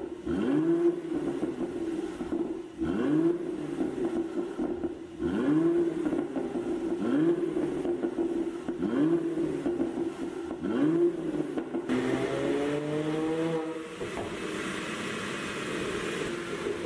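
Mercedes-AMG GLC 43's twin-turbo V6 through a tuned exhaust, blipped about six times, each rev rising and dropping quickly, roughly every two seconds. Near the end comes a longer rev rising over about two seconds that then settles into a steadier drone.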